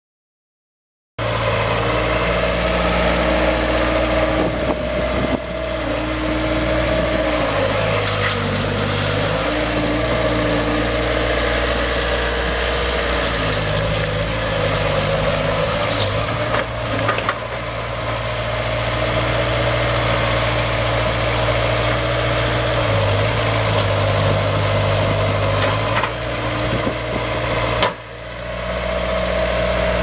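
Diesel engine of a 2006 Bobcat S150 skid steer (Kubota V2203 four-cylinder) running, cutting in abruptly about a second in. Its speed steps up and down several times, with a few sharp knocks along the way.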